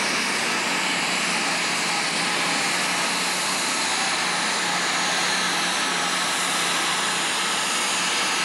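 Super stock pulling tractor's turbocharged diesel engine running flat out under full load while pulling the sled, a loud, steady scream that holds the same pitch throughout.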